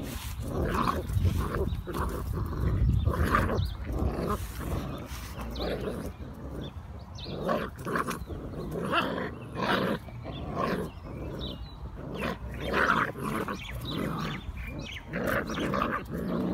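Two pit bull puppies play-growling in short, irregular bursts as they tug and wrestle.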